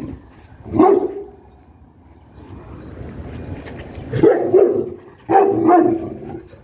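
A dog barking: one bark about a second in, then two more close together near the end.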